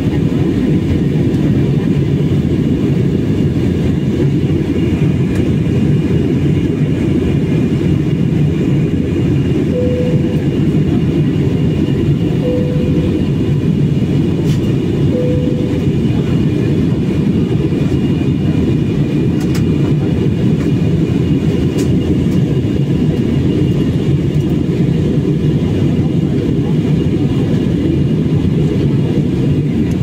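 Steady cabin noise of a jet airliner in flight: a constant low rush of engines and airflow heard from inside the cabin. Three short faint tones sound about a third of the way in, a couple of seconds apart.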